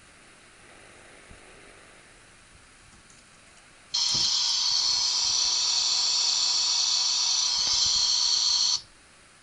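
AEG toy washing machine playing an electronic sound effect through its small speaker: a loud, steady, buzzy, high-pitched sound that starts abruptly about four seconds in, runs about five seconds, and cuts off suddenly.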